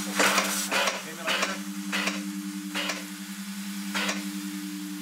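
Compressed-air atomizing nozzle of a salt-water particle diffuser spraying fine mist. Its hiss comes in irregular spurts, roughly one every half second to a second, over a steady low hum.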